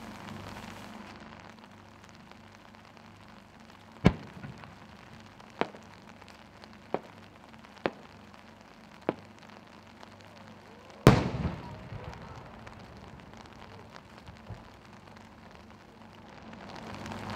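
A 10-go (about 30 cm) Japanese aerial firework shell with a rising tail and triple-pistil changing chrysanthemum: a sharp report at launch, four smaller pops from the small flowers bursting on the rising tail as it climbs, then, about seven seconds after launch, the loudest boom as the main shell bursts, echoing away over a second or two.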